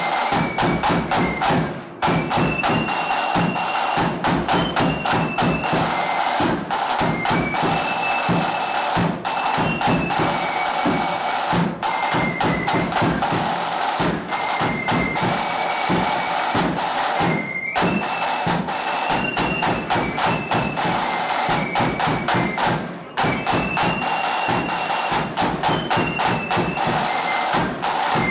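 Blood-and-thunder flute band playing: flutes carry a high stepping melody over rapid snare drumming and heavy bass drum strokes, with two brief breaks between phrases.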